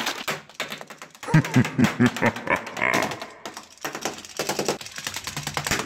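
A rapid run of small clicks and knocks, with a few short voiced grunts or growls about one and a half to two and a half seconds in.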